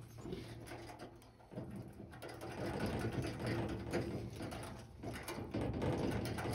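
A thin wire and keys worked inside a door lock's keyhole to try to open it without the key: many small metallic scratches and clicks in quick, irregular succession.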